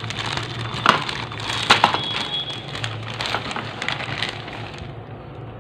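Thin clear plastic bag crinkling and rustling in irregular crackles as it is opened and handled by hand, growing quieter near the end.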